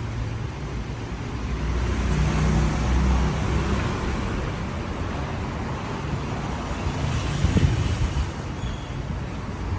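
Motor vehicle engines and road traffic noise: a steady rumble that swells about two seconds in and peaks briefly near the end.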